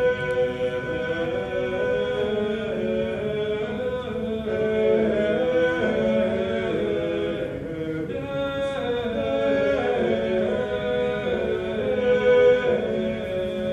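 A man singing a slow melody in long held notes, with a steady lower note sustained beneath it.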